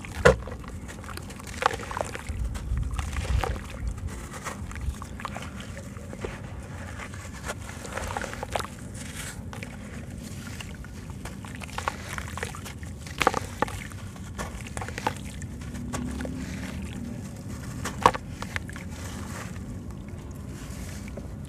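Wet sand-cement lump crushed by hand, crumbling into a shallow pool of water: a steady gritty crunching with scattered sharper crackles and small sloshes as pieces drop in.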